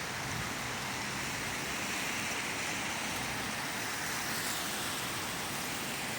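Steady road traffic noise from the roundabout and motorway: a continuous hiss of vehicles passing, with no single vehicle standing out.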